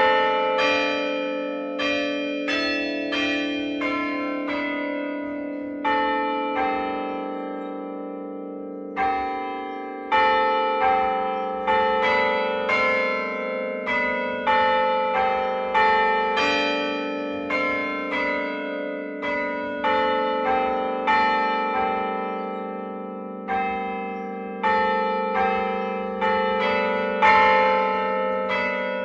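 Church tower bells ringing a tune, about one strike a second in phrases with short pauses between them, each note ringing on under the next.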